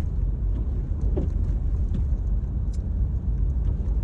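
A car being driven, heard from inside the cabin: a steady low rumble of engine and road noise, with a few faint ticks.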